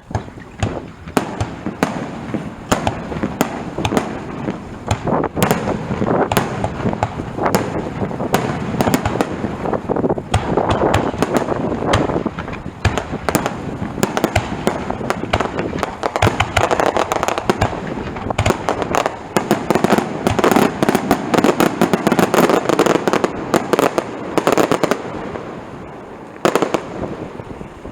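Aerial fireworks bursting close overhead: a dense, rapid series of booms and cracks that builds into a near-continuous crackling barrage, thinning out near the end.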